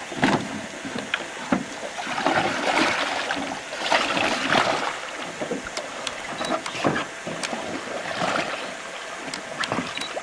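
Canoe paddles stroking through water, a splashing swish about every two seconds, with a few sharp knocks.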